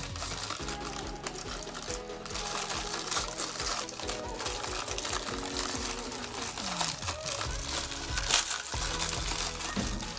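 Background music, over the crinkling of a plastic bag being handled and opened around a chainsaw replacement cylinder.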